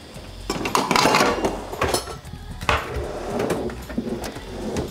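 Metal baking trays and pans clattering and knocking together as they are rummaged through in a low kitchen cupboard: a string of irregular clanks, busiest in the first couple of seconds, with one sharp knock near the middle.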